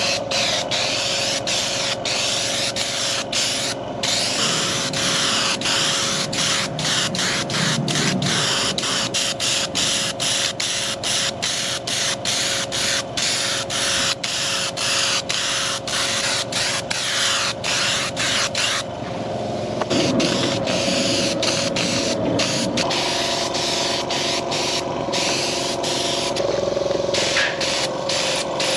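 Hobby spray gun hissing in many short bursts as the trigger is pulled again and again, spraying thick black seat colour. Underneath runs the steady hum of a small hobby compressor.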